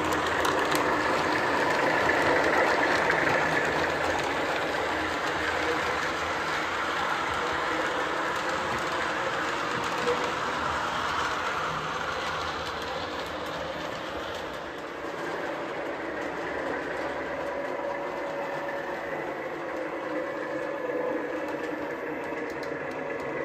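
A Lionel Lion Chief Plus 2.0 Santa Fe Doodlebug model's onboard sound system plays a steady, clanking railcar engine run, over the model rolling on three-rail track.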